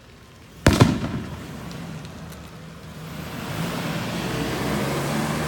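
One sharp, loud bang a little under a second in, with a brief ringing tail. After it, a car's engine and tyre noise rise over a couple of seconds into a steady drone.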